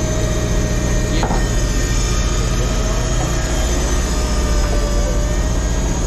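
Steady drone of a charter fishing boat's engine machinery, a low hum with a few faint steady tones over it. There is a brief faint tick about a second in.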